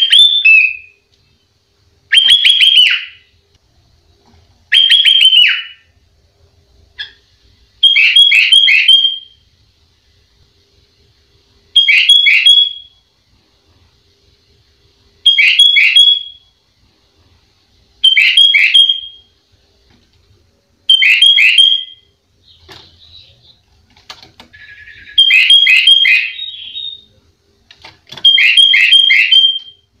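Sooty-headed bulbul (kutilang) singing: loud, bubbly song phrases of about three quick notes each, repeated roughly every three seconds.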